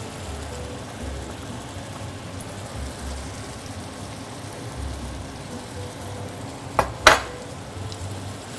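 Ground beef sizzling steadily as it browns in a hot oiled frying pan, stirred and scraped with a wooden spatula. Two sharp knocks close together about seven seconds in.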